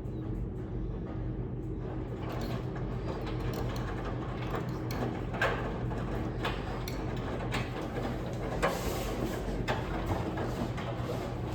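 Miele W1 Professional washing machine turning its drum in the softener rinse: a steady motor hum, with laundry and water sloshing and dropping about once a second.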